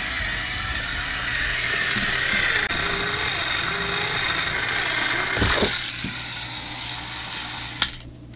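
Battery-powered Trackmaster toy engine's small electric motor and greased gears running with a steady whir. There is a knock about five and a half seconds in, and the sound drops off with a click near the end.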